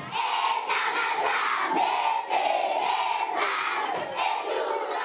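A group of voices chanting together in unison, in short repeated rising-and-falling phrases.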